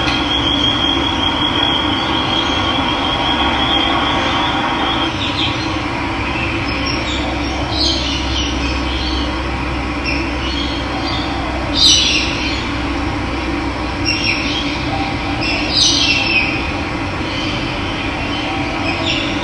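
Steady rush of running water with birds calling over it: a high trill for the first few seconds, then several short calls, the loudest about twelve seconds in.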